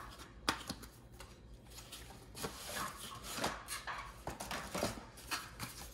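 Cardboard packaging of a computer mouse being handled: a paper sleeve slid off the box and the inner box's flaps pulled open, with light taps and clicks and scraping rubs of cardboard against cardboard.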